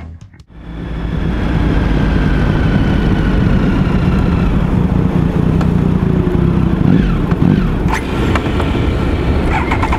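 Triumph motorcycle heard from the rider's seat in traffic: engine and road noise with a faint whine that falls slowly in pitch as the bike slows, and a few sharp clicks near the end. The engine is cutting out, which the rider calls an unhappy motorbike.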